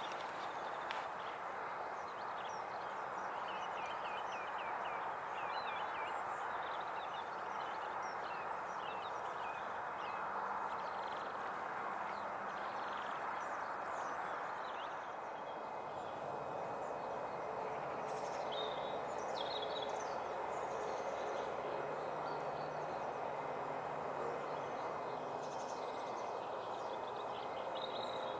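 Small birds chirping in short runs of quick high notes over a steady background of outdoor noise, like distant traffic.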